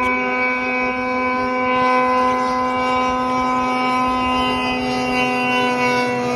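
Two-stroke snowmobile engine held at steady high revs as the sled skims across open water, one unwavering high-pitched engine tone.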